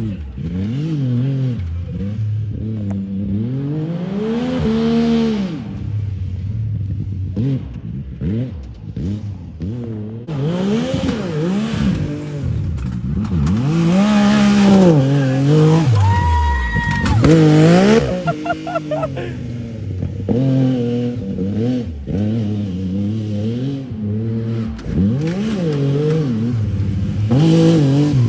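A vehicle engine being revved again and again, its pitch climbing and falling every second or two, with a short steady high-pitched tone partway through.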